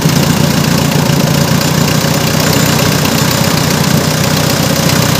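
Mitsubishi 4D56 four-cylinder diesel engine idling steadily on one of its first runs after a top overhaul.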